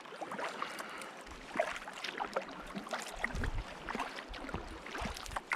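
Kayak paddling on open water: the paddle blades dipping and splashing, with many small irregular splashes and drips. A low rumble comes in about three seconds in.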